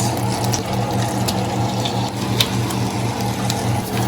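A steady low hum with a slight pulsing, under a wash of rushing noise, with a few light clicks and taps scattered through it.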